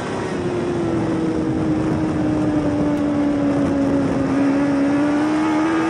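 Dirt-track race car engine running at steady revs, heard from inside the cockpit over wind and track noise. Its pitch sags slightly through the middle and climbs again near the end.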